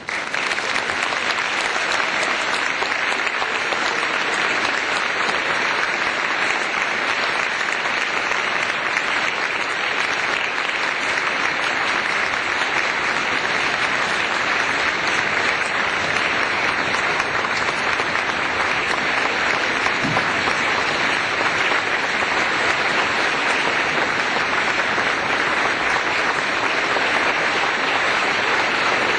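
Applause from many people: dense, even hand clapping at a steady level, starting abruptly.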